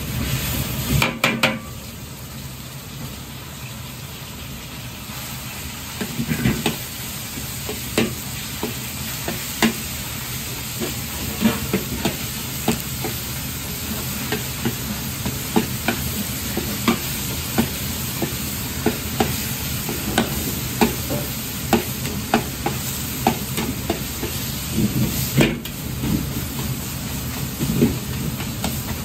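Ground pork dropped into hot oil in a wok and frying with a steady sizzle, while a metal spatula and ladle scrape and clack against the wok as the meat is broken up and stirred, one or two sharp clicks a second.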